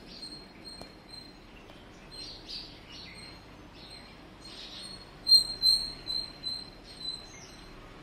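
Birds chirping: a repeated high, thin single note, about two to three a second, that grows loudest about five seconds in, with softer twittering mixed in.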